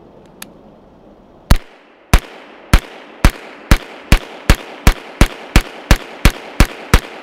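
B&T GHM9 9mm pistol firing semi-automatic, about 14 shots, starting about a second and a half in after a faint click. The shots come faster and faster, from about one and a half to about three a second. The gun cycles 147-grain Gold Dot hollow points with no stoppage.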